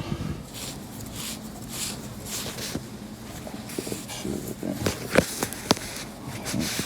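Soft rubbing and scattered light clicks of small metal bicycle freewheel parts being handled and cleaned out, with a couple of sharper clicks about five seconds in.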